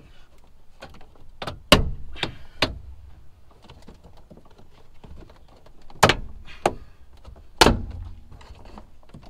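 Sharp plastic snaps and knocks, six in two groups of three, from an Acura TSX's rear deck trim panel being pried and worked loose, its retaining clips letting go.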